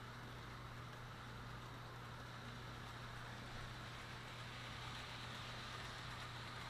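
Hawthorne Village Silver Moon Express model electric train running around its track: a steady whir of the motor and wheels on the rails over a constant low hum.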